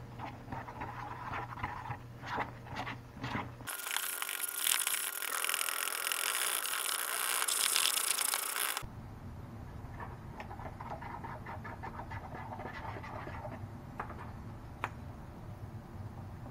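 A utensil stirring thick pancake batter in a plastic bowl, scraping and clicking against the sides in uneven strokes. A few seconds in, a loud steady hiss cuts in abruptly and stops just as abruptly about five seconds later.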